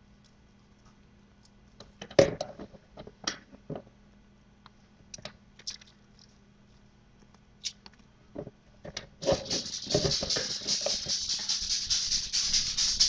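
Kitchen handling sounds while raw chicken thighs on a foil-lined tray are seasoned by hand: a few scattered knocks and clicks, then from about nine seconds a steady dry rustling that keeps going.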